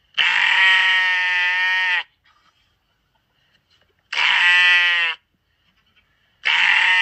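A sheep bleating loudly three times, each a long, steady baa lasting one to two seconds.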